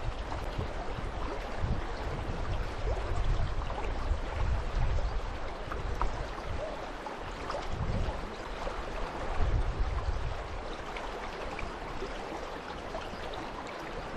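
River water running over shallows: a steady rushing hiss, with irregular low rumbles underneath.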